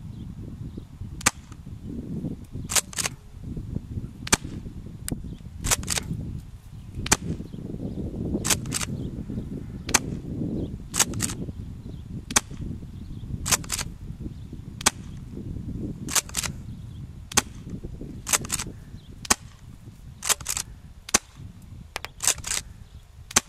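Tokyo Marui M870 gas airsoft shotgun firing shot after shot, three BBs a shot, as sharp pops mixed with the clack of the pump being worked, many coming in close pairs about a second apart. A low wind rumble on the microphone runs underneath.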